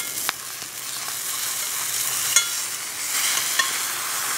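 A beef burger patty sizzling in a cast-iron skillet over a wood fire, the sizzle growing louder near the end. A metal fork clinks against the pan once, about two and a half seconds in.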